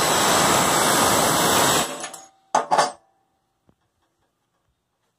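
Pneumatic air hammer with a pointed bit, rattling hard on a mower deck pulley spindle for about two seconds to drive it out of the pulley. Two short blips of the tool follow.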